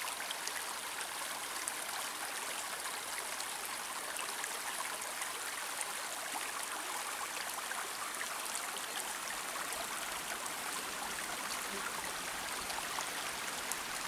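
Small spring-fed brook babbling steadily over stones, an even rushing hiss.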